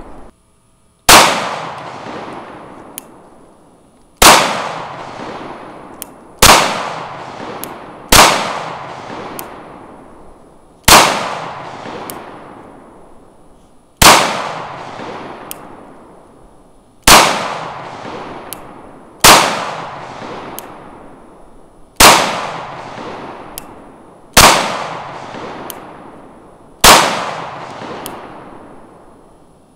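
FN 509 Tactical 9mm pistol fired in slow, deliberate single shots, eleven in all, about every two to three seconds. Each sharp report trails off in a long echo.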